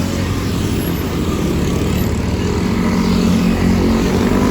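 Large bus passing close by, its engine a steady low drone that grows louder toward the end.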